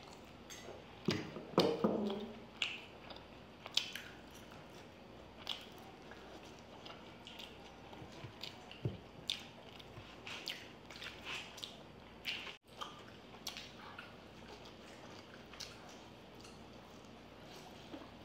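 Close-miked eating sounds: wet chewing and squishy mouth sounds of noodles and Manchurian balls, with scattered small clicks. A louder cluster of mouth sounds comes about one to two seconds in.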